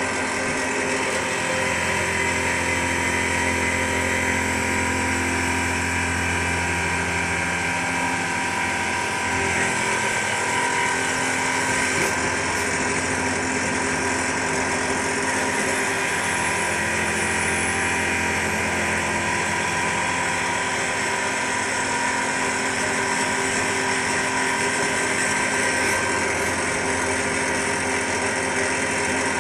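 CNC turn-mill machine running, its end mill in a driven live-tool holder cutting a metal part held in the lathe chuck: a steady mechanical drone with several steady tones. A low hum swells up for several seconds near the start and again past the middle.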